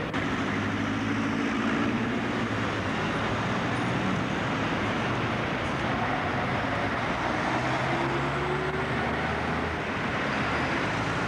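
Tour bus engine running while driving through city traffic, with a steady road and traffic hum; the engine note rises briefly about eight seconds in.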